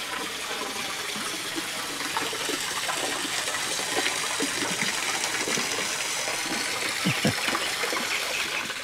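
Steady splashing of a small fountain's water jet, spouting from a bronze toad's mouth and falling onto the cobbled paving.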